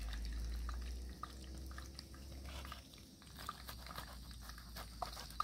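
Knife cutting through a crisp fried bread pakora on a wooden chopping board: scattered small crunches and light knocks over a low, steady rumble.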